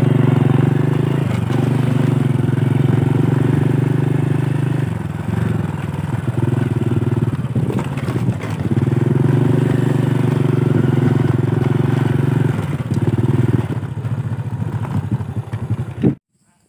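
Small underbone motorcycle's engine running steadily while riding a rough dirt track, easing off briefly a few times before stopping abruptly near the end.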